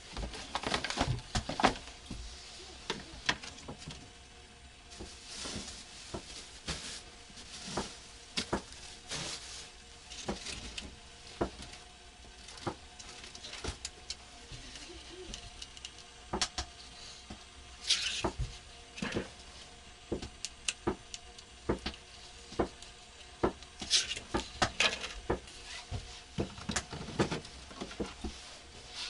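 Irregular clicks, taps and knocks, with a couple of louder rustling bursts partway through: small objects being handled in a small room.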